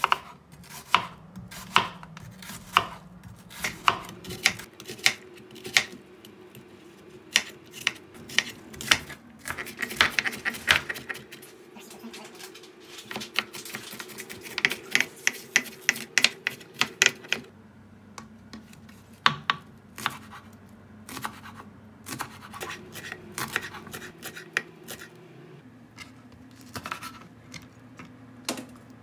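Chef's knife chopping on a plastic cutting board: sharp knocks as it dices an onion, in quick runs of rapid strokes broken by pauses, then slower single cuts through green onion.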